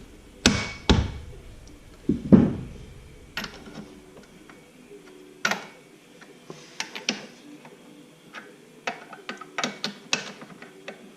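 Irregular sharp metallic knocks and clinks of hand tools and parts being handled on a Ford 9-inch differential third member. The loudest and heaviest knock comes about two seconds in, followed by lighter scattered clicks.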